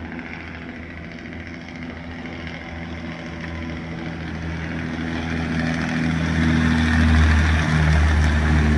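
Isotta Fraschini Asso 750 W18 petrol engines of the torpedo boat T-26 running at speed, growing steadily louder as the boat closes in, with the rush of its bow wave and spray. It is loudest near the end.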